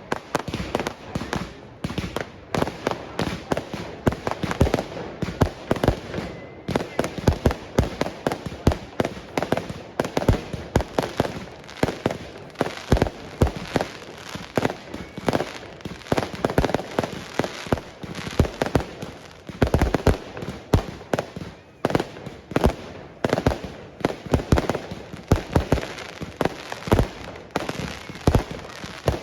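Fireworks going off in a dense, continuous barrage: many sharp bangs and pops a second.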